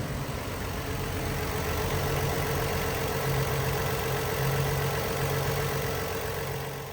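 2022 Ford Transit 350's engine idling steadily.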